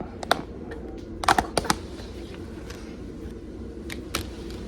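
A scattered series of sharp clicks and taps from objects being handled, several in quick succession about a second and a half in and two more near four seconds, over a low steady hum.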